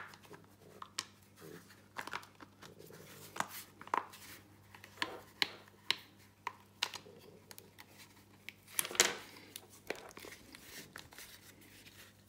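Hard plastic clicks, taps and rubbing from a Flexi retractable dog leash's housing being handled and its top half fitted back on. Irregular clicks throughout, the loudest knock a little after nine seconds in.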